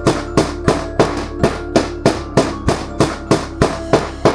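Background music with a steady drum beat, about three beats a second over held notes and bass.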